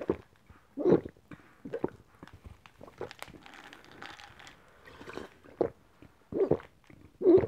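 Close-miked gulping as a person swallows an iced drink from a glass, with several loud gulps. In the middle, while the glass is lowered, there is a softer stretch of crackling and clicking.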